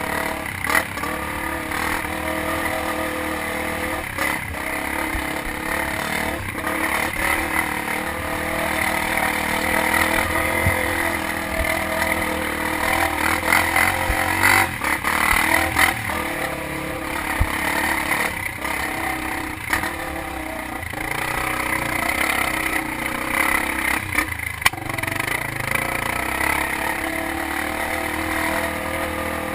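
Off-road motorcycle engine running steadily while riding a rough trail, with clattering and scattered sharp knocks.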